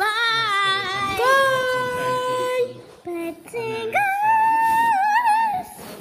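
A child singing long, high held notes in two phrases, the second higher than the first and wavering near its end.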